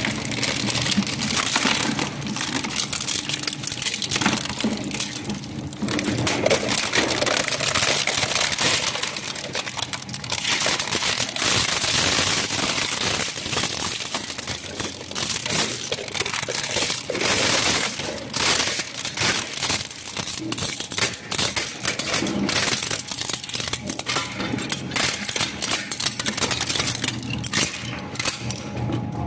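Twin-shaft shredder's toothed steel blade rollers tearing through plastic buckets and toys: a dense, continuous crunching and cracking of breaking plastic, over a low steady hum from the machine's drive.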